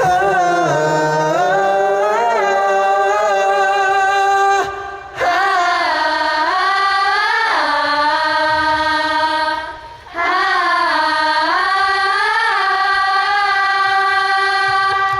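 A man singing solo in a high voice, live. He sings three long phrases with held, sustained notes, bending the pitch up and down, with short breaths between them about five and ten seconds in.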